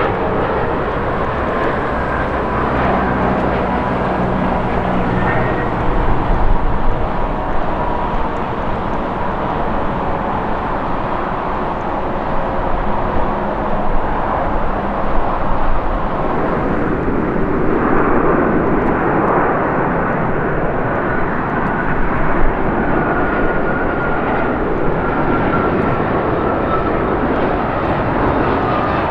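Jet airliner engines on landing approach: a continuous jet noise with a faint high whine, changing about halfway through as a second jet comes in.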